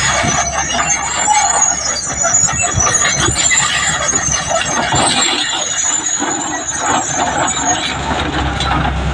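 Heavy earthmoving machine giving a high-pitched, wavering metallic squeal over clanking, which fades out near the end.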